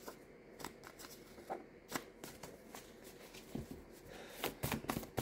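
Tarot cards being shuffled and handled: scattered soft card flicks and snaps, with a quicker run of them near the end.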